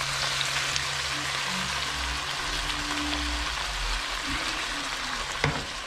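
Beef and pork mince and onions sizzling in a hot frying pan as a jar of chilli sauce is poured over them, with one sharp click about five and a half seconds in.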